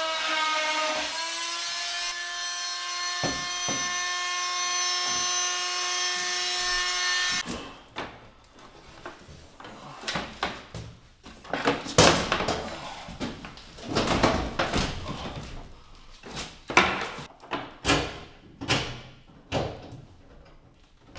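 Corded oscillating multi-tool with a wood blade cutting into the wooden cabinet panel: a steady high buzz whose pitch dips briefly under load about a second in, stopping suddenly about seven and a half seconds in. After that come irregular knocks and bumps as the microwave is lifted and fitted up against the cabinet.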